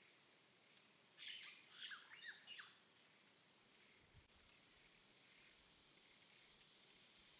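Near silence: faint background hiss with a steady thin high whine. About a second in come a few faint short chirps that last about a second and a half.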